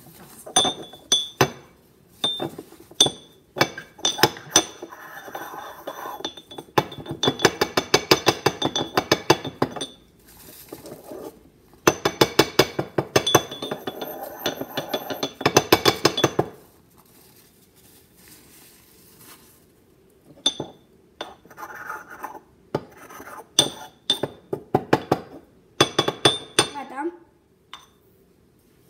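Porcelain pestle pounding mint and lemon juice in a porcelain mortar covered with a paper napkin: sharp clinking strikes, coming in two long runs of rapid, even pounding with several strikes a second, then a pause and a further stretch of separate strikes.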